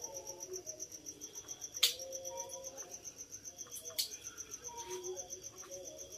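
Crickets chirping in a steady, fast, even pulse, with two sharp clicks about two and four seconds in.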